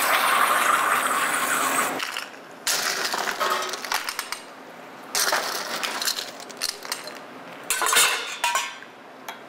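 Glass and ice clinking over a steady hiss, which is loudest for the first two seconds and then comes back in three shorter stretches.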